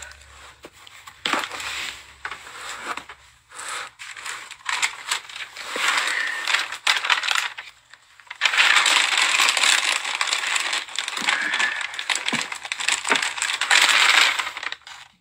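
Packaging rustling and crinkling with scattered small clicks as a gift package is handled and opened, in uneven spells, with a long stretch of steady crinkling in the second half.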